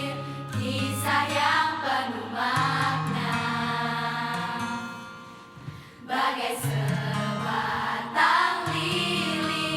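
A song with several voices singing together over a steady bass line. The music thins out and dips in level around five to six seconds in, then picks up again.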